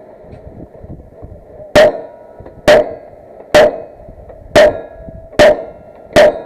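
Gunshots in a steady string, six in all, about one a second. Each shot is followed by a brief metallic ring.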